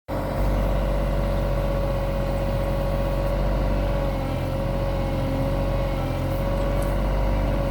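Cat 303 mini excavator's diesel engine running steadily, with a steady tone held over it.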